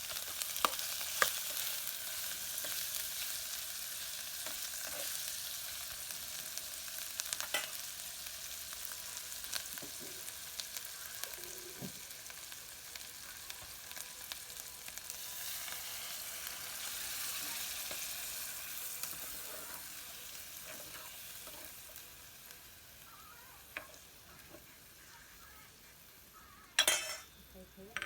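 Food sizzling in a hot pan as it is stir-fried, with scattered clicks and scrapes of the utensil against the pan. The sizzle dies down over the last several seconds, and a short loud clatter comes near the end.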